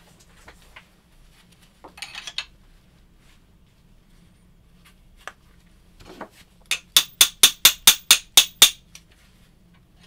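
A quick run of about ten sharp metallic taps, roughly five a second, in the second half, after a few lighter knocks and a brief clatter about two seconds in. It is hand-tool work on a rifle's muzzle brake and its fitting shims.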